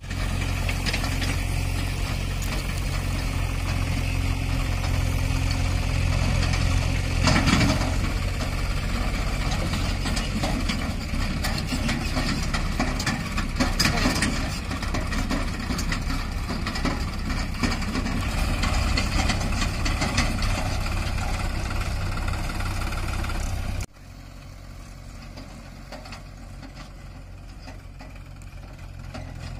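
Sonalika DI 47 RX tractor's three-cylinder diesel engine running steadily while it pulls a trolley over rough ground. About three-quarters of the way through, the sound cuts suddenly to a quieter engine running.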